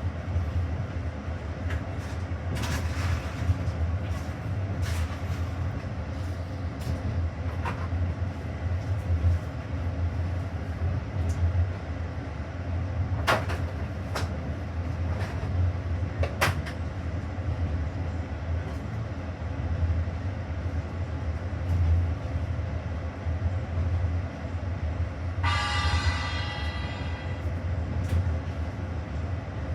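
Passenger train running, a steady low rumble with scattered sharp clicks and knocks. About 26 seconds in, a brief high-pitched ringing sound rises over the rumble for a second or two.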